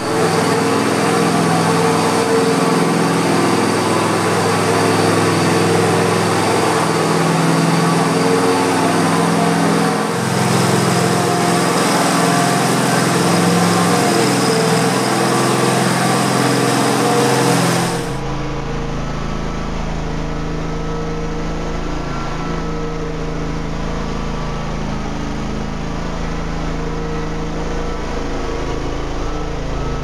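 Propane-powered high-speed floor burnisher's small engine running steadily as the pad spins on polished concrete. About two-thirds of the way through, the sound changes abruptly to a quieter, duller running with a low hum.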